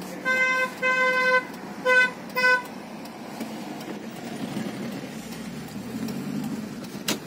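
Vehicle horn giving four short toots at one steady pitch, the second a little longer, over the steady hum of a car driving, heard from inside the cabin. A sharp click sounds near the end.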